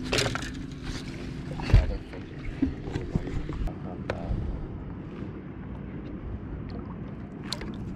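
Clunks and knocks on a fishing boat's deck, the loudest a sharp thump about two seconds in, then light splashing and small ticks of water as a smallmouth bass is held in the lake beside the boat for release.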